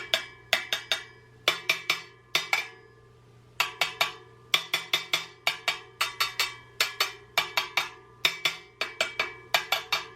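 Steel motorcycle wheel spokes tapped in quick runs of two to four, each strike giving a short metallic ping at its own pitch. The tapping checks spoke tension during truing: a tight spoke pings, a loose one does not and gets a half turn.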